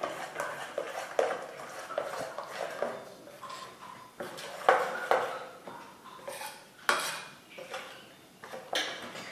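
Spoon stirring a thin rice-and-chana-dal batter in a stainless steel bowl, clinking and scraping against the metal sides in irregular strokes.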